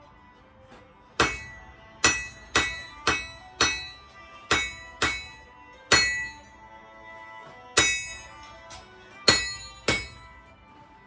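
Hammer blows on an anvil while forging rebar into a knife blade: about a dozen sharp strikes at an uneven pace, each followed by a metallic ring.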